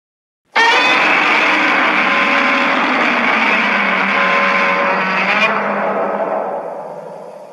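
Edited Godzilla monster sound effect: a loud, dense, noisy blast that starts suddenly about half a second in, holds for about five seconds with a few faint steady tones in it, then fades away near the end.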